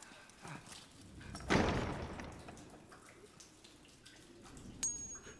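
A heavy cell door slams shut about one and a half seconds in, a loud thud that dies away over about a second. A sharp click follows near the end.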